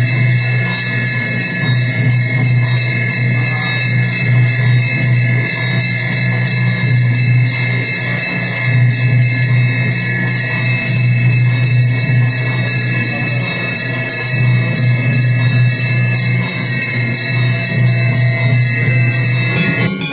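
Devotional aarti music, with bells and jingles rung in a steady beat of about four strikes a second over a sustained low drone.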